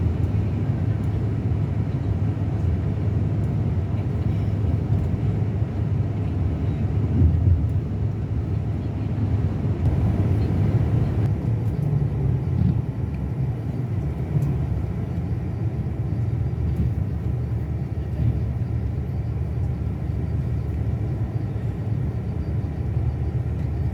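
Scania K360 coach's diesel engine running steadily, a constant low drone with road rumble.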